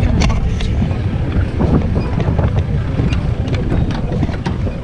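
Wind buffeting the microphone over the rumble of an open-top safari jeep driving on a rough dirt track, with scattered short knocks and rattles.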